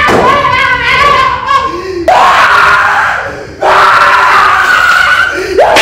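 Loud human screaming: three long, wavering cries, one after another.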